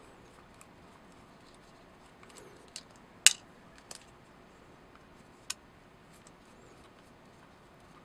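A flathead screwdriver working a small screw in the metal action of an air rifle: a handful of sharp little clicks of the tip against the screw and metal, the loudest about three seconds in.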